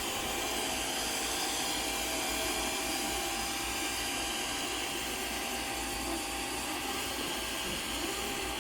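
Robot vacuum cleaner running steadily: an even hiss with a faint steady tone.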